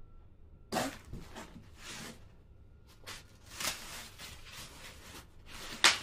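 Thin white foam packing sheets rustling and crinkling as they are lifted out of a cardboard box, in a string of short bursts with the sharpest one near the end.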